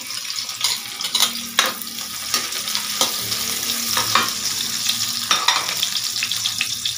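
Sliced onion and garlic sizzling in hot oil in a wok while being sautéed, with a metal spatula scraping and clinking against the pan several times as it stirs.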